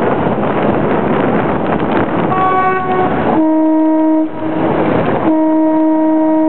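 A boat horn sounding three blasts over steady wind and motor noise: a short, higher-pitched toot about two seconds in, then two longer, lower blasts with a short gap between them.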